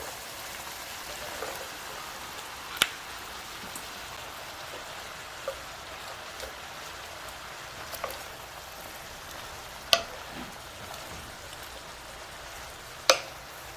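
Sliced bitter melon frying in oil in a pan: a steady sizzling hiss, with a few sharp clicks scattered through it, the loudest near the end.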